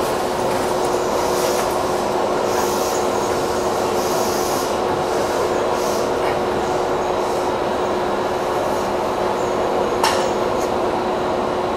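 Seibu 3000 series electric train standing still, heard from the cab: a steady hum from its running equipment with one constant tone, a few brief high hisses in the first seconds, and a sharp click about ten seconds in.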